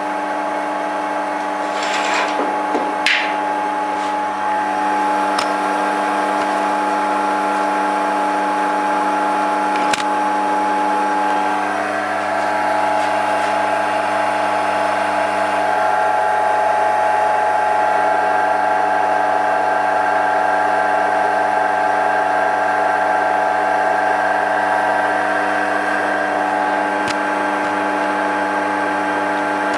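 Homemade lathe running steadily, its electric motor driving the spindle and stepped pulley through a belt: a continuous hum with several steady tones. A few brief clicks come about two to three seconds in and again about ten seconds in.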